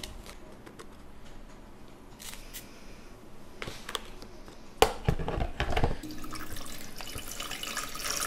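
Light scraping of ground coffee being spooned into a brewer basket, a sharp clack and a few knocks about five seconds in, then from about six seconds in water pouring steadily from a plastic pitcher into the reservoir of a Bonavita drip coffee maker.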